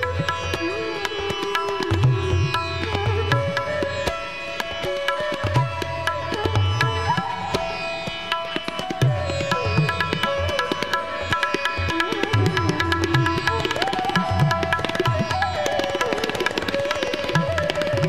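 Instrumental background music in an Indian classical style: hand-drum strokes come and go under a melody that slides between notes, over a steady held drone.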